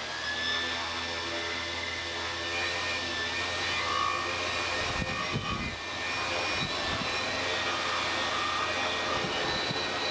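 Tricopter's three brushless motors and propellers running with a steady whirring buzz. The sound eases off briefly about five seconds in, with a few low knocks, then runs steady again.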